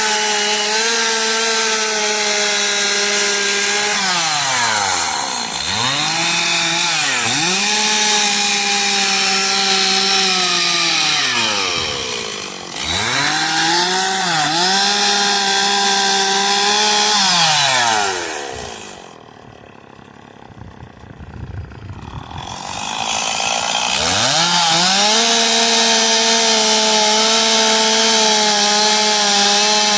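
Gas chainsaw running at full revs while carving wood. The revs drop and climb back twice, then fall to a low, quiet idle for a few seconds past the middle before the saw revs up again.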